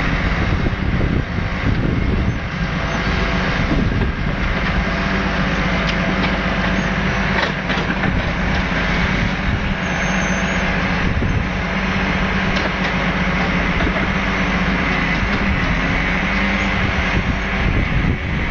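Volvo timber lorry's diesel engine running steadily, driving the hydraulics of its Loglift crane as it loads pulp logs, with a few knocks of wood in the grapple.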